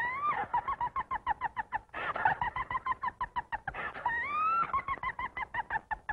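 Cartoon hen-like cackling: rapid clucks, about eight a second, broken by two rising squawks, one at the start and one about four seconds in.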